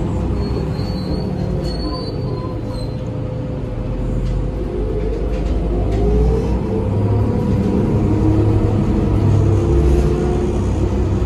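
Inside a New Flyer DE60LFR articulated hybrid bus on the move: its Cummins ISL straight-six diesel and Allison EP50 parallel hybrid drive running under a heavy low rumble. A whine rises in pitch as the bus speeds up and falls away again over a steady hum.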